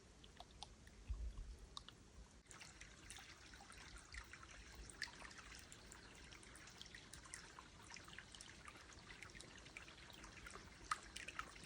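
Faint trickle of water, small drips and dribbles, coming in about two and a half seconds in. A few low thumps come about a second in.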